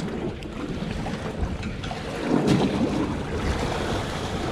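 Wind buffeting the microphone over water sloshing against a small boat's hull, with a louder rush about two seconds in.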